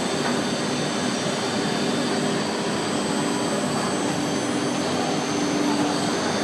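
Four-head CNC wood router running, its spindles giving a steady whine over a broad rushing machine noise.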